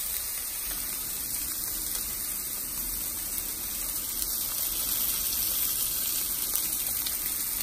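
Plant-based sausages sizzling in a hot cast-iron skillet, a steady frying hiss that grows a little louder about halfway through as olive oil is poured into the pan.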